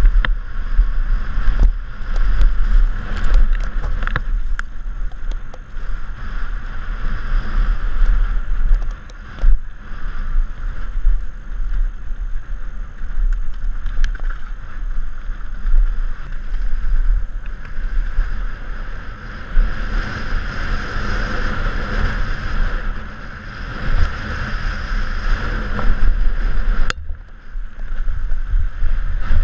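Downhill mountain bike rolling fast over a rough dirt trail: a continuous rush of wind buffeting a helmet-mounted camera, with tyre noise and sharp knocks and rattles from the bike over bumps, most of them in the first few seconds.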